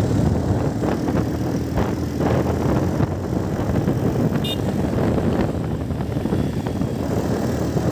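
Motorcycle engine running steadily while riding, with wind and road noise.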